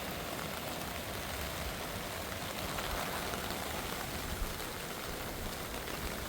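Steady rushing hiss of moving water, even throughout with no distinct splashes.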